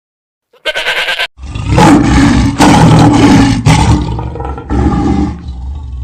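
A large wild animal roaring loudly in three or four long, rough roars, after a brief opening sound.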